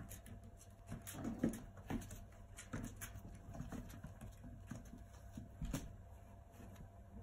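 Two six-week-old puppies wrestling: faint scuffling, rustling of a puppy pad and light paw and claw taps, with scattered sharp clicks and a louder bump about a second and a half in.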